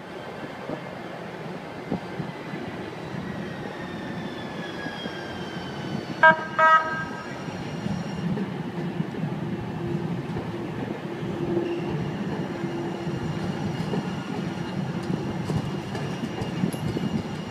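San Diego Trolley light-rail train approaching and passing close by: a steady rumble of wheels on rail with a whine that slowly falls in pitch, and two short horn toots about six seconds in.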